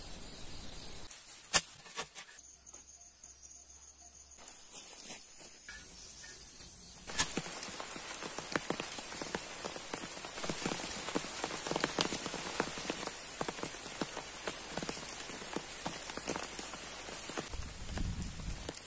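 Rain pattering on leaves, a dense scatter of small drops that thickens about seven seconds in, over a steady high-pitched insect drone. A couple of sharp clicks come in the first two seconds.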